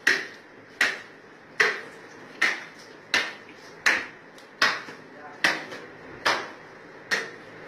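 Butcher's cleaver chopping through sacrificial-animal meat and bone, a steady run of about ten sharp strokes, a little more than one a second.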